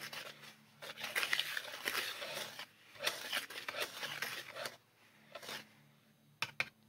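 Hands mixing dry bath-bomb powder (cream of tartar, SLSA and cornstarch) in a bowl: uneven rustling scrapes and rubs, dying down near the end.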